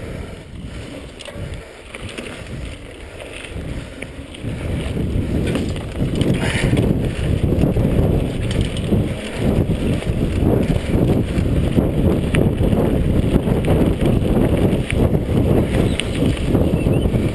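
Mountain bike descending a rough dirt singletrack: tyres and frame rattling over the trail, with wind buffeting the microphone. It grows louder about four seconds in.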